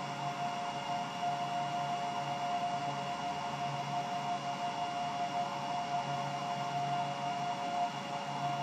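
A steady hum with a constant high whine over a hiss, and a low throb that comes and goes.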